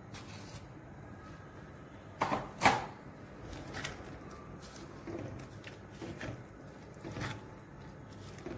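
A spatula stirring thick paneer curry in a steel kadhai: soft scrapes and knocks against the pan, with two louder knocks a little over two seconds in.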